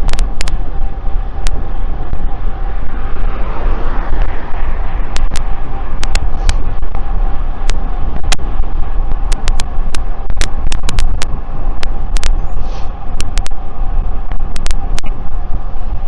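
Riding noise picked up by a DJI Mic 2 sending over Bluetooth to an Insta360 X4: a steady rush, heavy in the low end, with a steady hum underneath. It is broken by a few dozen sharp crackles at irregular intervals, the Bluetooth audio fault that does not happen with the same mic on an Insta360 X3.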